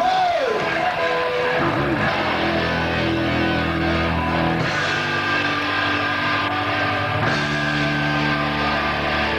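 Heavy metal band playing live, with distorted electric guitars. A falling note slides down at the start, then long held chords change about every two to three seconds.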